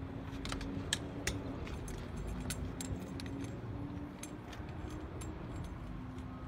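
Light clicks and rattles of an electrical harness plug and its cable being handled and fitted at a skid steer loader's front connector, a dozen or so sharp clicks spread unevenly, over a faint steady hum.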